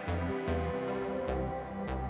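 Electronic background music with a steady beat and a pulsing bass line.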